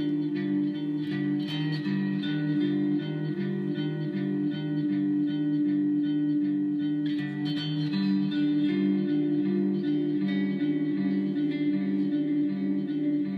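Background music led by guitar, with a repeating low figure of notes under a held tone.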